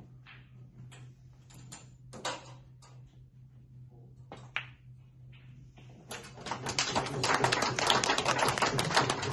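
A sharp click of a cue tip striking a snooker ball, then, from about six seconds in, a small crowd applauding loudly.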